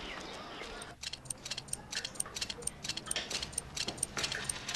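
A spinning prayer wheel ticks and clicks rapidly, with a faint high ting repeating about twice a second. It starts about a second in, after a steady background hiss.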